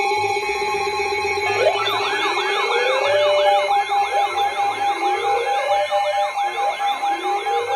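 Emergency alert sirens: a steady electronic alert tone, joined about one and a half seconds in by several layered sirens. Some yelp rapidly up and down while others wail slowly upward, sounding the alarm for a severe thunderstorm warning.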